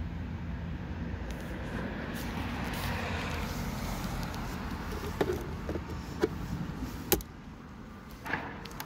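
A few sharp plastic clicks and knocks from the door-mirror glass and its plastic backing plate being handled and fitted back into the mirror housing, over a steady low outdoor rumble.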